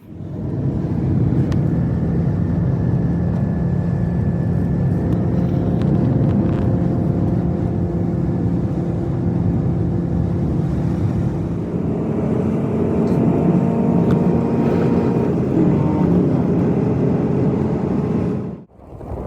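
A motor vehicle's engine running steadily, its tone shifting about two-thirds of the way through; it starts and cuts off abruptly.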